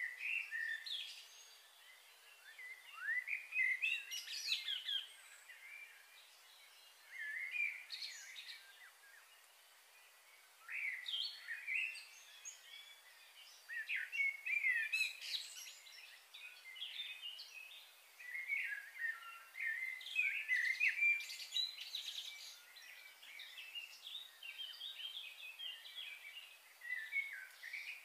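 Birds chirping and singing in short phrases of quick, gliding calls every few seconds, with quieter gaps between.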